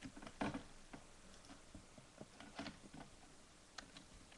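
Faint, irregular clicks from a computer mouse, the loudest a little under half a second in.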